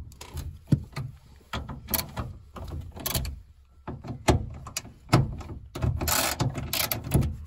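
Ratchet wrench with a socket extension turning out the latch screws in a van's steel sliding-door frame: irregular clicks and metallic knocks, with a longer run of fast ratchet clicking near the end.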